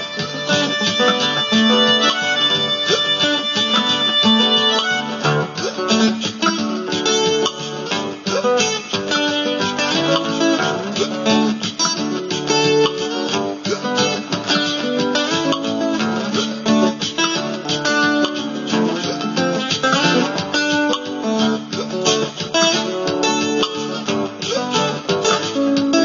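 Layered loop-pedal music: repeating bars stacked on one track, with dense plucked notes throughout. High held tones drop out about five seconds in.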